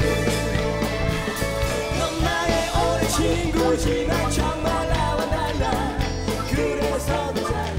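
Live pop-rock band playing: a steady drum and bass beat with a wavering melodic lead line over it.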